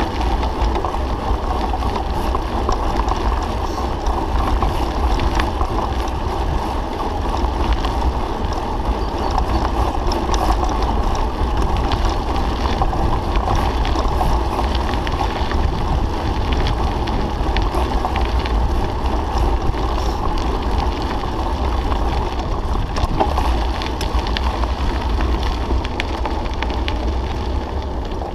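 Steady wind rumble on a handlebar-mounted camera's microphone while riding a mountain bike over a dirt and gravel track. Tyre noise runs underneath, with scattered small ticks and rattles from the bike.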